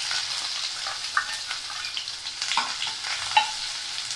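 Sliced onions sizzling in hot ghee in a stainless steel kadai, stirred with a perforated steel spatula that scrapes the pan and strikes it with a few ringing metal clinks, the loudest near the end.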